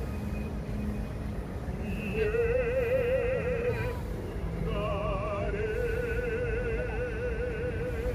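Operatic baritone voice singing a Korean art song (gagok): a few long held notes with wide, even vibrato, with a short break about four seconds in.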